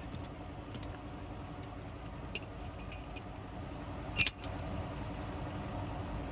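Small 12-volt air pump running steadily while inflating a tractor tire, with light metal clinks and one louder metal clank about four seconds in as the strap shackles are undone.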